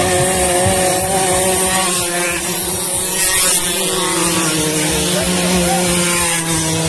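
Racing scooter engines running flat out, a steady high-revving drone that holds its pitch, with a rushing noise over it.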